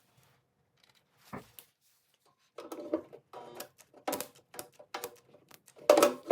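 Irregular hammer strikes on the steel body panel of a 1984 SAAB 900 as a dent is worked out. There are about a dozen knocks, most under a second apart, several with a brief metallic ring.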